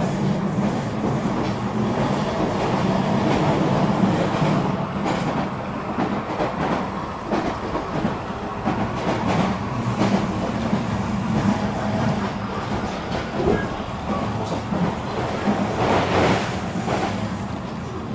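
HO scale model freight train, led by an EMD GP38-2 locomotive, rolling along the track: its wheels click over the rail joints above a steady low hum, with a louder stretch near the end.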